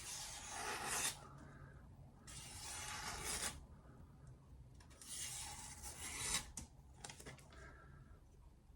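A knife blade drawn in three long rubbing strokes, each lasting about a second, followed by a few light clicks.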